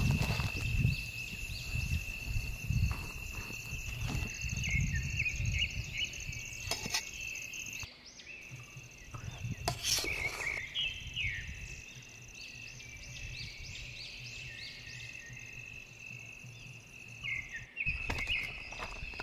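Crickets trilling steadily at a high pitch, with a low rumbling noise over the first several seconds and a few sharp knocks about ten seconds in and near the end.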